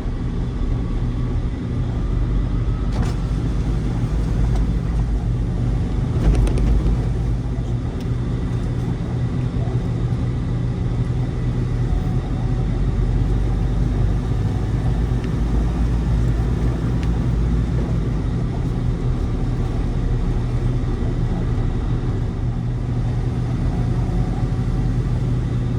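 Steady low rumble of a vehicle driving: road and engine noise with no change through the stretch.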